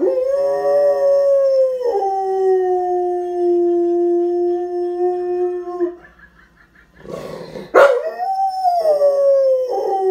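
Rottweiler howling in long drawn-out notes. The first howl lasts about six seconds and steps down in pitch partway through. After a brief pause comes a sharp burst, then a second howl that rises and falls.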